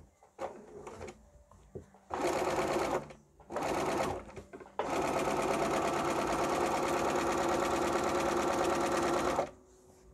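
Bernina B 570 sewing machine stitching a seam through cotton quilt pieces: two short runs of about a second each, then one steady run of about five seconds that stops shortly before the end. Light clicks of fabric being handled come first.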